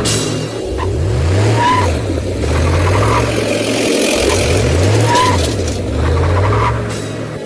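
Dubbed-in engine sound effect revving up and down in a repeating loop, the pitch rising and falling every couple of seconds.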